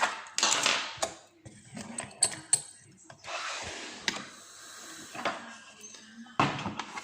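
Handling noise from a lock and metal lock-picking tools: rustling, with a run of small metallic clicks and clinks, one ringing briefly about two seconds in, and a knock near the end.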